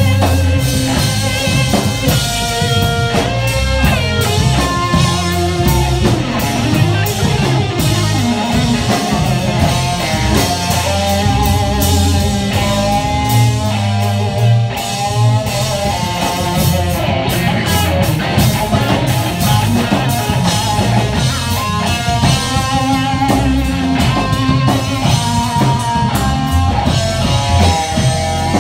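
Live rock band playing an instrumental passage: two electric guitars through amplifiers, one playing melodic lead lines, over a steady drum kit and low end.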